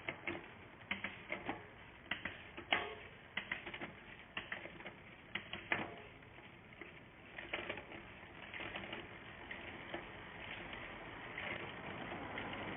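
Bicycle shifter and rear derailleur being worked during the final cable adjustment: a run of sharp, irregular clicks, several a second, thinning out after about six seconds over a faint rustle.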